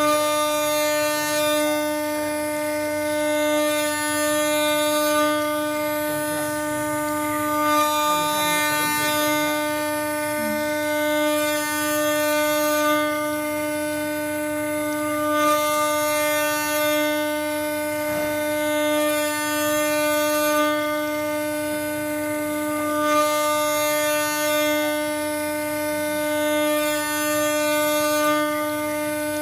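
Spindle of a small 4-axis CNC engraving machine running with a steady whine while carving jade. A high hiss swells and fades about every four seconds.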